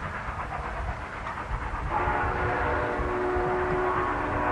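Departing steam excursion train rumbling away. About two seconds in, a locomotive chime whistle starts and holds, several steady tones sounding together as a chord.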